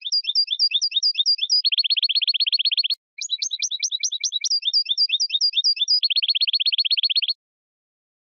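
European goldfinch singing: quick, repeated twittering notes, each phrase ending in a fast buzzy trill. There are two phrases, with a short break about three seconds in, and the song stops abruptly about a second before the end.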